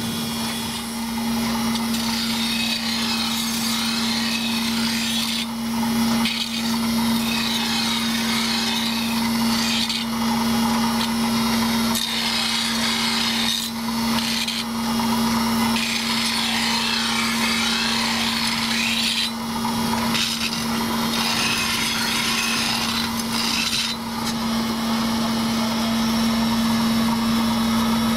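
Automatic knife sharpener on a Pöttinger Jumbo loader wagon: its grinding wheel rasps against the serrated cutter knives, the grinding noise swelling and dipping irregularly over a steady hum.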